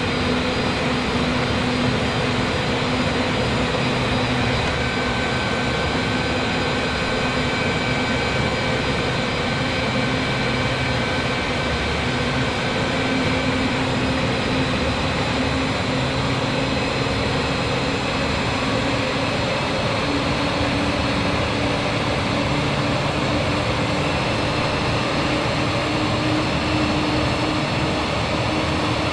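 Steady jet engine and airflow noise inside an airliner cabin during the approach to landing, with faint engine tones slowly rising in pitch.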